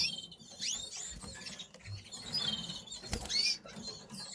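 Domestic canaries chirping: a scatter of short, high-pitched calls, with one sharp click a little after three seconds.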